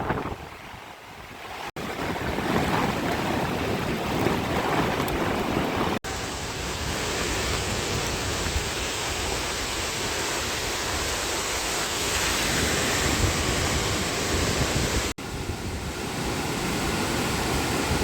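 Steady rushing of typhoon-swollen stream water mixed with wind buffeting the microphone, cut off abruptly three times between clips.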